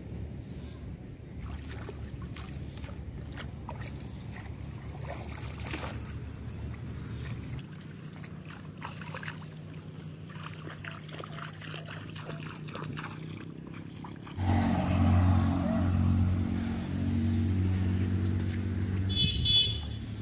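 Splashing and sloshing of feet and hands in shallow, weedy floodwater over a low steady hum. About two-thirds of the way in, a louder steady engine-like hum starts abruptly. Near the end a bicycle bell rings briefly.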